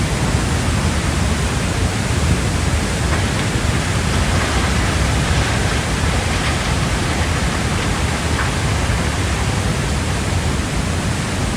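Heavy rain: a steady, dense rush of water noise.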